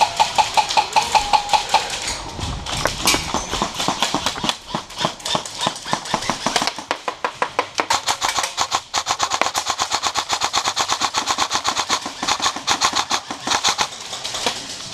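Airsoft guns firing long strings of rapid full-auto shots, the rapid clicks almost unbroken with only brief pauses.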